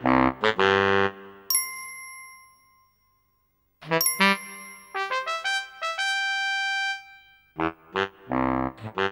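Children's cartoon music: a few short punchy notes, then a single bell ding that rings out and fades. After a brief silence comes a run of ringing chime notes, then short punchy notes again near the end.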